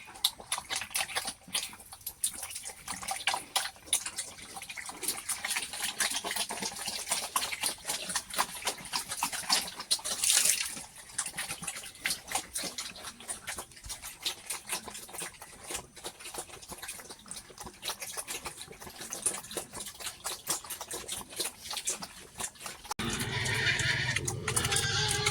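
Pigs eating: a fast, irregular run of chomping and smacking clicks. Music comes in near the end.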